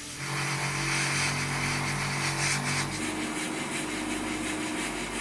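Airbrush spraying paint: a steady hiss of air over the hum of a small air compressor's motor, the hiss easing off about three seconds in while the hum carries on.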